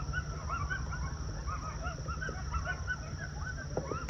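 A pack of coyotes yipping and howling together: many short rising-and-falling calls overlapping in a continuous chorus, over a steady low rumble.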